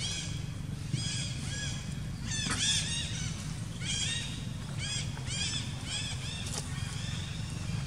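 Repeated high, chirping animal calls in short quick runs, several a second, over a steady low hum.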